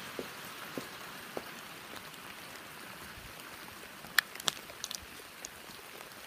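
Heavy rain falling steadily, a dense hiss with scattered drop ticks, and a couple of sharp taps just after four seconds in.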